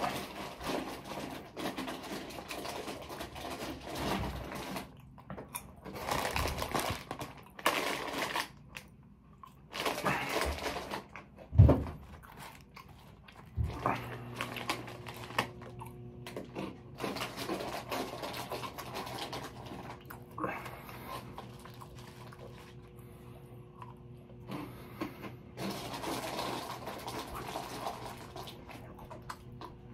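Close-up eating sounds: chewing, with irregular rustling and crinkling of food wrappers or chip bags, and one sharp knock about twelve seconds in. From about fourteen seconds a steady low hum starts and continues underneath.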